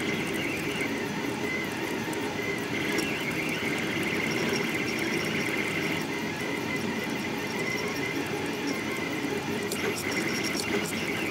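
Delta Rostock 3D printer running a fast print: its stepper motors whine in high tones that swell and fade as the effector darts around, over a steady mechanical whir.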